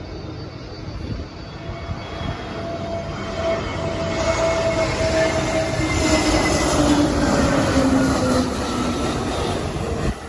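Jet airliner passing close: a rushing engine noise that grows to its loudest about two-thirds of the way in, with whining tones sliding down in pitch as it goes by, then cuts off abruptly near the end.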